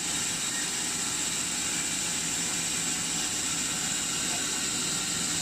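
Horizontal band resaw machine running steadily, its motor humming under a constant high hiss from the band blade.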